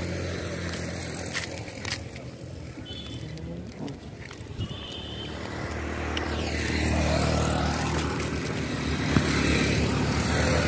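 Road traffic on a highway: a motor vehicle engine hums steadily, and the sound grows louder from about halfway through as a vehicle passes close by.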